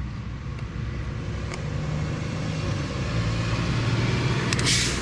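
Steady low rumble of road traffic that grows louder, with a short sharp hiss near the end.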